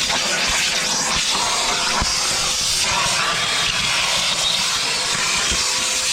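Steady rush of air, with a faint steady hum under it, as air blows the dust out of a Milwaukee M18 backpack vacuum being cleaned.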